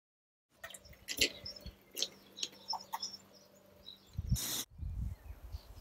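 Small birds chirping, with several sharp clicks and a brief burst of rushing noise about four seconds in, followed by a low rumble. The sound cuts in abruptly after half a second of dead silence.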